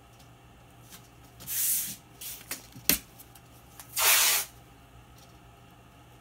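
Blue painter's tape pulled off the roll in two quick rips, about one and a half seconds in and again at about four seconds, the second longer and louder, with a sharp tap just before it.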